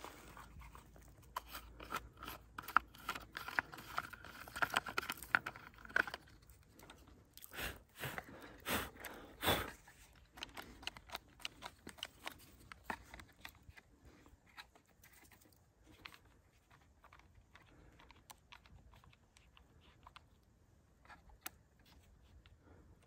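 Clicks, scrapes and plastic rattles of a Bosch cordless mini pruning chainsaw being handled as its plastic side cover is unlatched and lifted off, with the saw switched off. The noises are busiest in the first ten seconds, then thin out to occasional ticks.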